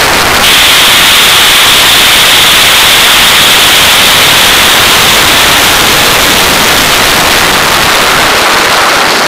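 Loud, steady rush of airflow over a camera mounted on the outside of a Pitts biplane in flight. A high, steady whistle joins about half a second in.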